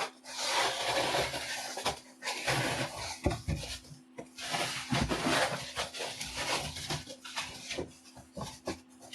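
Cardboard and plastic packaging of a guitar shipping box being opened and handled: long tearing and rustling rasps, twice, with scrapes and knocks of cardboard between.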